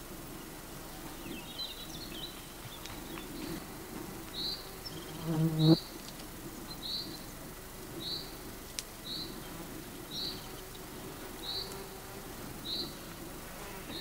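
A bird repeating a single short, high call note over and over, about once a second, after a brief twitter near the start. A flying insect buzzes loudly past the microphone a little over five seconds in, over a faint steady hum.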